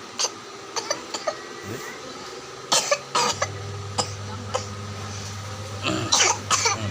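A small child coughing while eating ice cream. There are two short fits of a couple of coughs each, the first near the middle and the second near the end.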